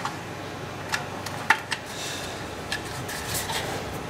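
A few scattered light clicks and taps of hand tools on engine parts, over a steady low hiss.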